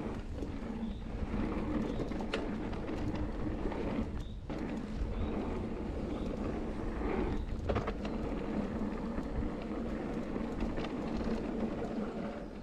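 Mountain bike ridden over a dirt trail: tyre rumble and rattling knocks from the bike over a steady hum, with scattered clicks.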